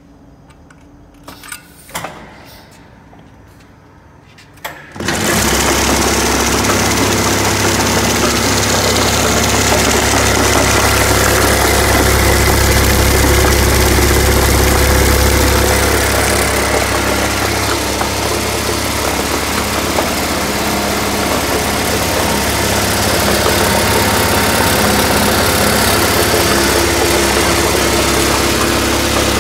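Paper jogger machine switched on about five seconds in after a few clicks, its vibrating table running with a loud, steady low hum and buzz that stops just at the end.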